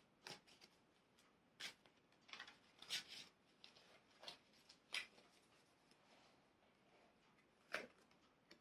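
Tarot cards being shuffled and handled: a scattering of faint, short card flicks and taps at irregular intervals, with quiet in between.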